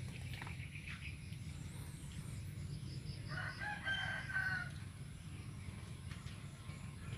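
A single drawn-out bird call, about a second and a half long, starting about three seconds in, over a steady low rumble.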